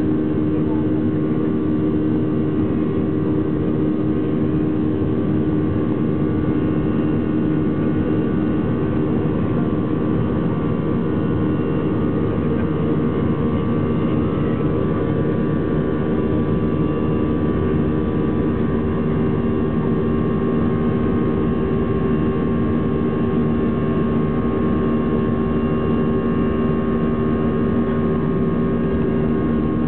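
Airbus A320's jet engines running steadily, heard from inside the cabin over the wing: a constant hum with several steady droning tones over a hiss of rushing noise. The level and pitch hold even, so the engines are at a steady setting on the runway rather than spooling up.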